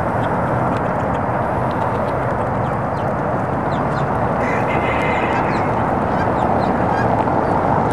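Free-roaming chickens calling over a steady rushing background noise, with one longer pitched call about halfway through and scattered short high chirps.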